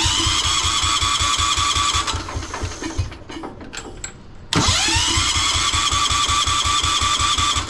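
The 10 hp Kohler K241 single-cylinder engine of a 1973 Wheel Horse tractor is cranked by its electric starter on full choke. It turns over in two spells, about two seconds and then about three seconds. In each, a whine rises and levels off as the starter spins up over a steady, rapid beat of compression strokes, and each spell cuts off suddenly.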